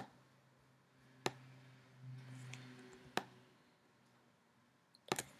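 Computer mouse clicks as polygons are being selected: single clicks at the start, about a second in and about three seconds in, then a quick run of clicks near the end.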